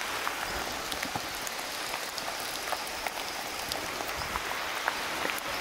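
Steady rain falling on the rainforest canopy and leaf litter, an even patter with a few faint clicks scattered through it.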